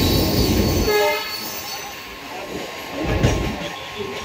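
Train running noise heard from aboard a moving train: a heavy rumble of wheels on track for the first second, then quieter. A short pitched tone sounds about a second in, and a single knock comes a little after three seconds.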